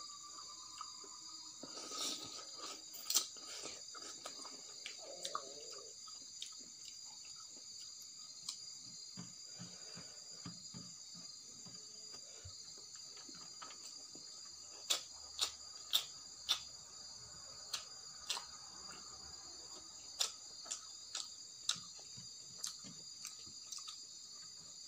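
Crickets chirring steadily in the background, with eating sounds over them: hand-eating from a steel plate, mixing rice and chewing. This gives a scattering of sharp clicks, with a run of louder clicks in the second half.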